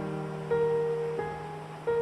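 Background music: slow piano-like notes struck about every second or so, each left to ring and fade.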